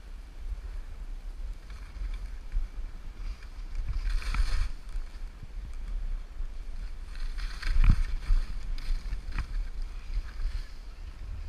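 Skis sliding and swishing through ungroomed snow, with wind buffeting the camera's microphone as a steady low rumble. Louder swooshes come about four seconds in and again near eight seconds, the second ending in a thump.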